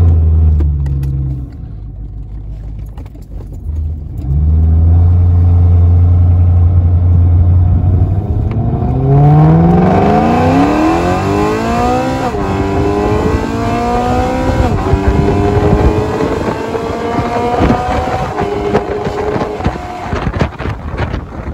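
Straight-piped BMW E93 M3's S65 V8 heard from inside the open cabin: a loud, deep drone that eases off briefly. About nine seconds in the engine revs climb hard under acceleration, its note dropping at gear changes about twelve and fifteen seconds in, with wind noise rising as it speeds up.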